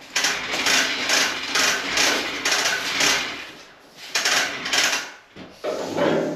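Rhythmic hand-tool work on the steel frame of a truck bed: a quick run of repeated strokes, about two to three a second, a brief pause, then more strokes and a lower, heavier burst near the end.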